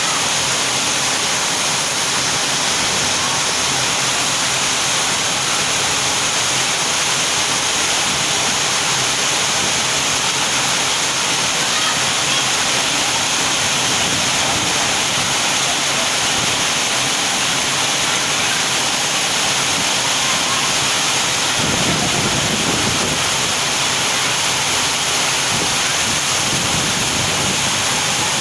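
Rain falling steadily, a dense, even hiss of downpour.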